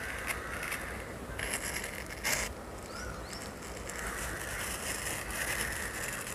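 Quiet scraping of a steel ice cream scoop drawn through firm frozen papaya ice cream in a plastic tub, with a short knock a little over two seconds in. A couple of faint bird chirps come from the background.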